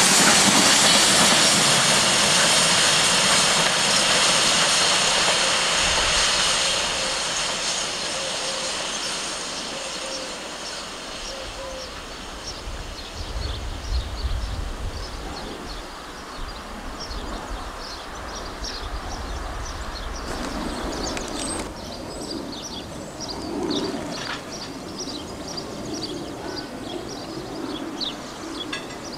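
Heavy freight train's wagons rolling over jointed track as the train pulls away, loud at first and dying away over the first ten seconds or so, leaving fainter sounds.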